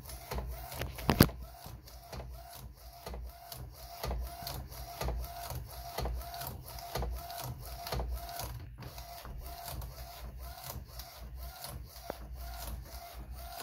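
DTF inkjet printer printing a transfer: the print head carriage shuttles back and forth across the film, with a click at each pass about twice a second, over a low motor hum. A single sharper click sounds about a second in.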